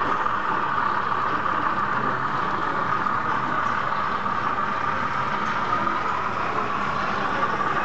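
Steady background hiss of a busy exhibition hall, even and unchanging, with no distinct events standing out.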